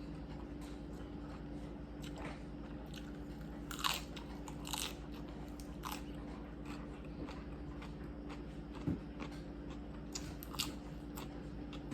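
A pet dog crunching and chewing its food, with a few sharp, louder crunches among the steady chewing.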